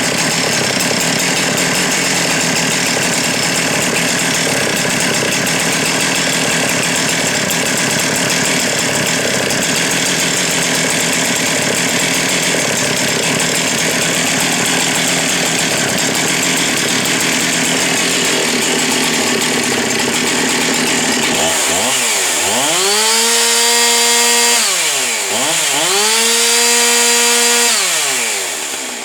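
Highly modified Husqvarna 372 X-Torq two-stroke chainsaw running flat out under load for about twenty seconds, with the dense noise of the chain cutting. It is then revved free twice, each time climbing to about 14,000 RPM, holding there for about two seconds and falling back, before dropping off near the end.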